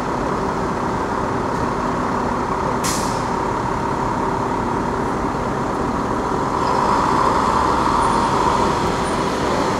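A heavy diesel engine running steadily amid city street noise, with a short hiss about three seconds in and a slight swell in loudness around seven seconds.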